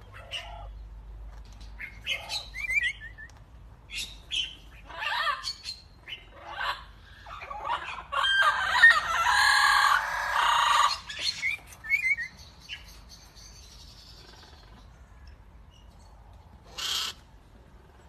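Hawk-headed parrots (red-fan parrots) calling: scattered short chirps and squawks, a loud stretch of harsh chattering squawks about eight to eleven seconds in, and one more call near the end.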